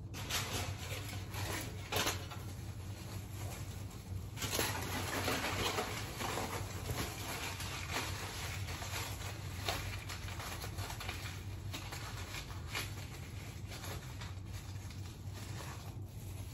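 Plastic-gloved hands rubbing bleaching paste through a mannequin's long hair: a continuous rustling, scratchy noise with scattered small clicks, busiest a few seconds in.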